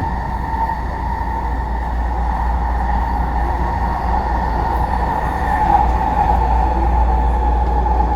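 SkyTrain car running along the track, heard from on board: a steady rumble with a steady whine over it, growing slightly louder.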